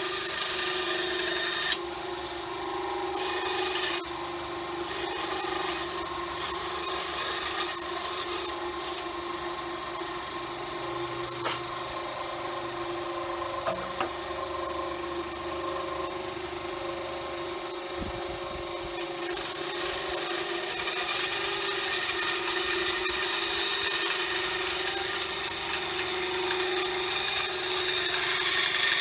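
Benchtop bandsaw running with a steady hum while its blade cuts through an oak board fed by hand. The cutting hiss is loudest in the first couple of seconds, drops, then builds again over the last third.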